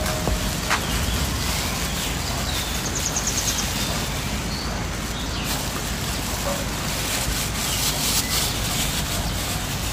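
Steady outdoor background noise with a few birds chirping now and then, and the light crinkle of a thin plastic bag as a hand scoops cooked red rice onto a plate.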